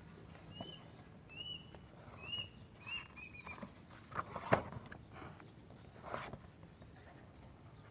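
Faint bird chirps: five short chirps in quick succession over the first few seconds, then two soft knocks.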